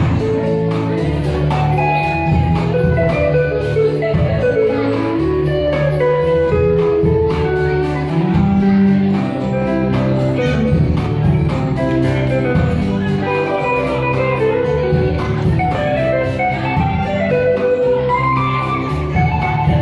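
Live band music with a steady beat, a bass line and melodic instrument lines, mostly instrumental.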